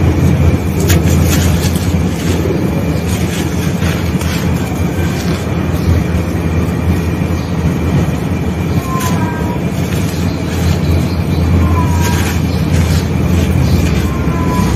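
Hands crushing and crumbling damp sand-and-cement balls, a continuous gritty crunching with many small crackles as the grit is squeezed and sifted. A steady low rumble runs underneath.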